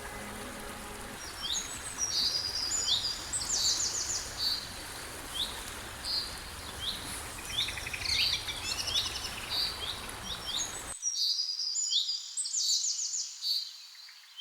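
A songbird singing repeated short, high chirps and quick trills over a steady background hiss that cuts off abruptly near the end, leaving the birdsong alone. Faint held music tones fade out about a second in.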